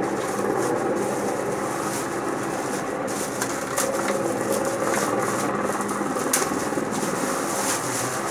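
Cable-car gondola cabin running along its cable: a steady mechanical hum and rattle, with a few light clicks.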